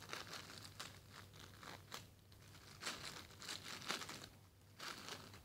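Thin clear plastic packaging bag of a squishy toy crinkling as it is handled, in irregular bursts of crackle with a short lull about four and a half seconds in.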